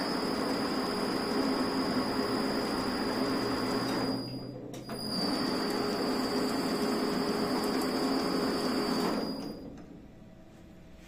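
Homemade lathe driven by two variable-frequency-drive motors running while the threading tool cuts a 3 mm pitch thread on a pipe: a steady whine with a low hum over a noisy cutting hiss. It dips briefly a little after four seconds, runs on, and stops a couple of seconds before the end.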